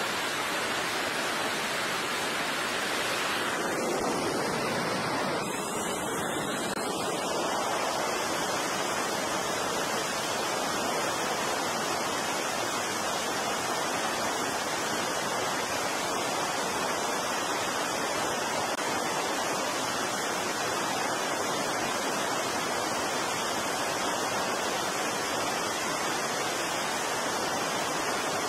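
Steady, even roar of jet aircraft engines running on a carrier flight deck, a dense hiss-like noise with no distinct tone.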